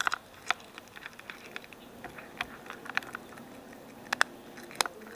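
A cat eating right at the microphone: irregular sharp clicks and smacks of chewing, a few louder ones near the start and near the end.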